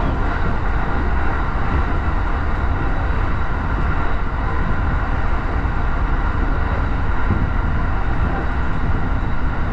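Commuter train running: a steady low rumble with a few faint steady tones above it.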